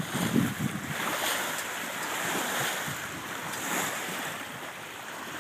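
Water rushing and splashing along the hull of a sailboat under sail, with wind buffeting the microphone in the first second.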